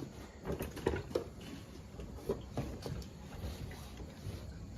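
Light, irregular clicks and knocks of metal parts being handled and tightened at a motorcycle's handlebar and steering head.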